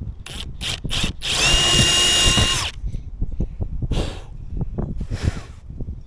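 Power drill with a 9/64 bit boring pilot holes for the cleat's screws: three short trigger blips, then about a second and a half of steady high whine, and two shorter bursts later on. Light knocks of handling sound between them.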